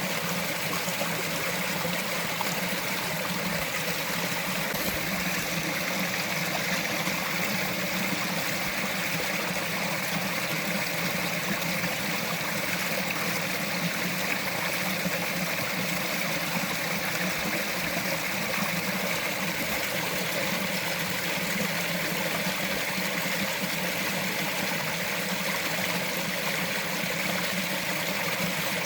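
Small mountain stream flowing and trickling over rocks, a steady even rush of water.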